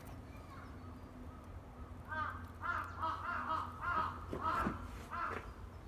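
Crow cawing: a run of about six or seven short calls, starting about two seconds in and lasting some three seconds.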